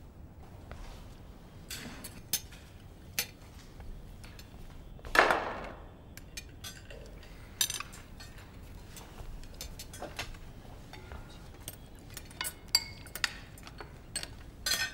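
Spoons and cutlery clinking and tapping against plates and serving bowls at a dinner table, in scattered light clicks, with one louder scrape of about a second a little over five seconds in.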